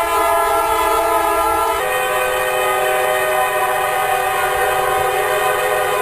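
Locomotive air horn sounding a sustained multi-note chord. About two seconds in, it switches abruptly to a different horn chord that holds steady.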